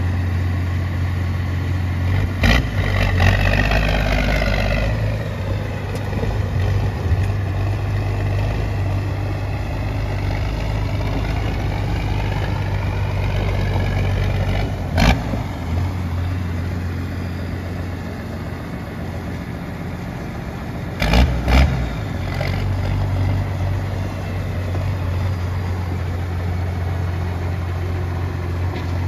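AM General M35A2C military truck's multifuel diesel engine running steadily as the truck drives slowly, with a rise and fall in sound early on. Sharp knocks cut through it: one near the start, a loud one about halfway, and a close pair about two-thirds of the way in.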